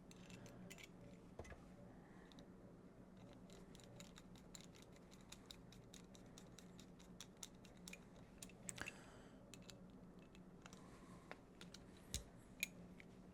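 Faint, scattered small metallic clicks and scrapes of steel revolver parts being handled and fitted, with a few sharper clicks about nine seconds in and near the end.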